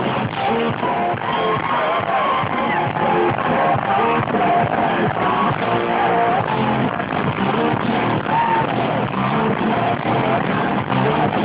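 Live rock band playing loud hard rock: electric guitars, bass and drums, with a pitch-bending lead line or vocal riding on top.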